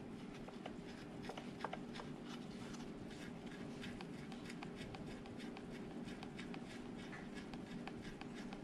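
Faint small clicks and handling noises of hands working the bar nuts on a chainsaw's clutch cover, over a steady low hum.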